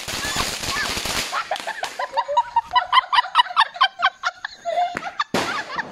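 A ground firework sprays sparks with a hissing crackle that stops about a second in. Then comes a run of short, high-pitched rising chirps, about four a second, and a single sharp crack near the end.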